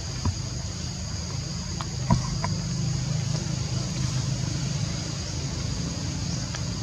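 Forest ambience: a steady low rumble under a constant high-pitched insect drone, with a few faint short clicks about two seconds in.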